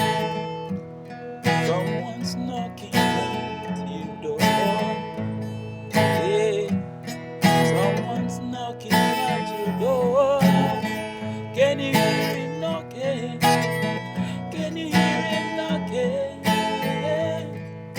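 Acoustic guitar strummed in a slow, steady rhythm, about one strum every second and a half, with a wavering melody line over it: the instrumental opening of a Christian song.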